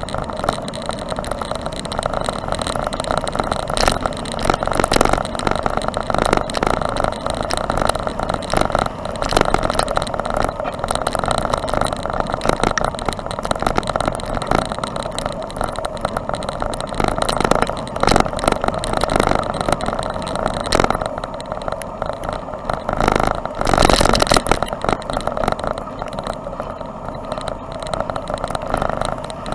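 Steady rushing wind and road noise on a bicycle-mounted camera while riding through falling snow, with frequent short knocks and rattles from bumps in the path. It is loudest a little after twenty seconds in.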